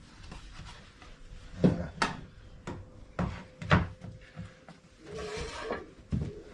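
Flat-pack wooden drawer panels being handled and fitted together: several sharp knocks of board on board, then a short scraping rub about five seconds in.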